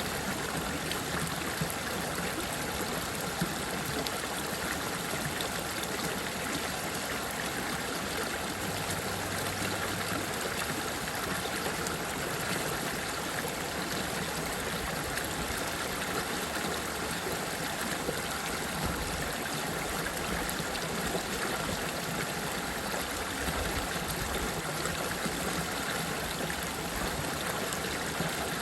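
Running water flowing steadily, a continuous even rush with a light trickling.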